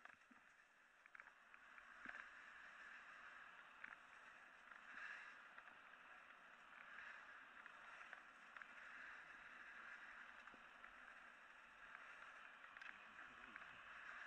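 Edges carving across a rough, choppy piste: a faint hiss of snow scraping that swells and fades with each turn, with a few small clicks and knocks.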